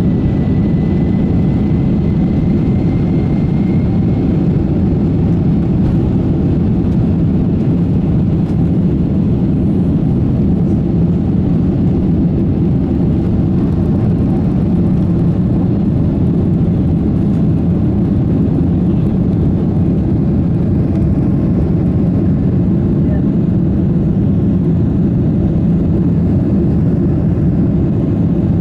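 Boeing 767-300 jet engines at takeoff power, heard inside the cabin over the wing: a loud, steady rumble through the end of the takeoff roll and the climb-out. A faint rising whine sits over it in the first few seconds.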